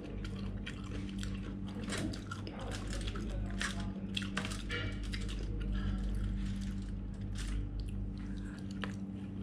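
Close-up mouth sounds of a person chewing bread and curry: many small, irregular wet smacks and clicks. A steady low hum runs underneath.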